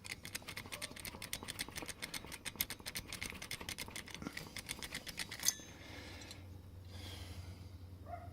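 A hand file works a silver MS2 key blank in quick, even strokes, several a second, shaping the key's outline. The strokes stop about five and a half seconds in with one sharp metallic click, leaving a faint low hum.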